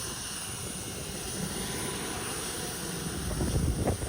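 Private jet's turbine engines heard from behind while the jet taxis: a steady rushing jet noise, with the low rumble swelling a little about three seconds in.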